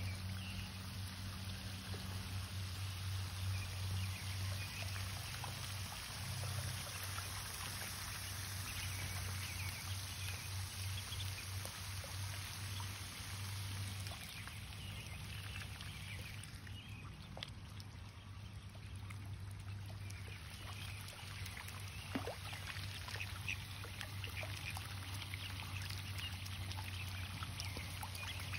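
Ducklings peeping and dabbling in shallow water, with water trickling and pouring and a low steady hum underneath.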